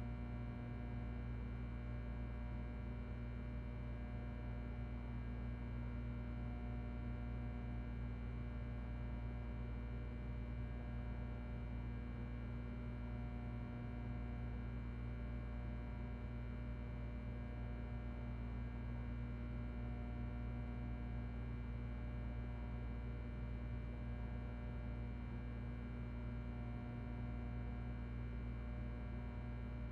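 Ventilation fan running steadily with a low electrical hum, a constant drone with several steady tones over a light airflow hiss.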